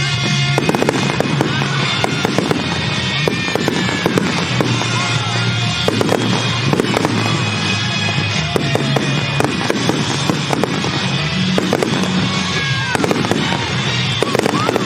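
Aerial fireworks shells bursting in quick, continuous succession with sharp bangs and crackle, a few whistles gliding in pitch, over loud pop-rock music from the show's speakers.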